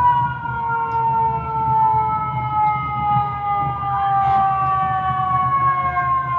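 Fire truck siren, its wail falling slowly in pitch throughout, over a steady low rumble. A second siren tone rises briefly about four seconds in.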